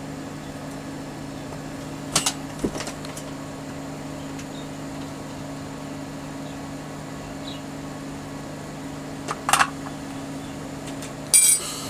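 Steady low hum, with a few short sharp clicks of tools being handled at a circuit board during desoldering; the loudest clatter comes near the end.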